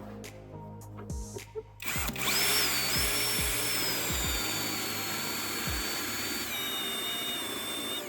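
Electric drill spinning a homemade hole saw with sharpened metal-rod cutters as it cuts through a plastic container. The motor whine starts about two seconds in with a hiss of cutting, its pitch sagging slowly and dropping a step near the end as it loads up, then it stops.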